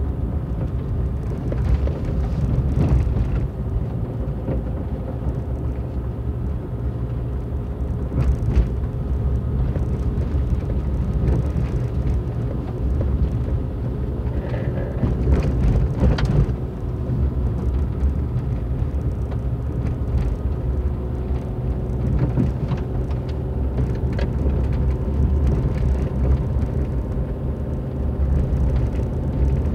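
Car driving along a gravel road, heard from inside the cabin: a steady low engine and tyre rumble, with a few short knocks and rattles from bumps and stones.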